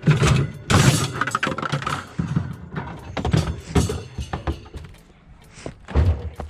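Discarded glass and junk clattering and breaking as it is pulled out and tossed, a series of irregular sharp crashes and knocks, loudest in the first two seconds and again near the end.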